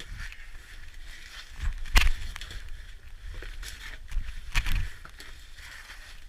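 Irregular knocks and crunching scrapes, the loudest about two seconds in and another a little past the middle, over a faint steady hiss and low rumble.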